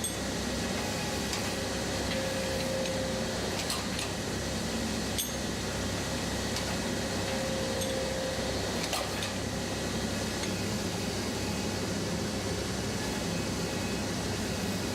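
Steady hum of factory machinery with a few sharp metallic clinks scattered through it.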